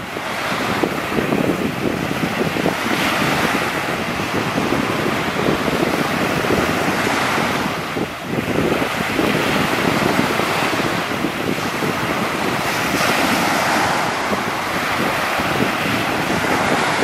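Small surf washing ashore, swelling and easing every few seconds, with wind buffeting the microphone.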